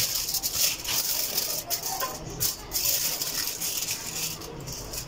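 Aluminium foil crinkling and rustling as hands work on it, in uneven stretches with a couple of brief pauses.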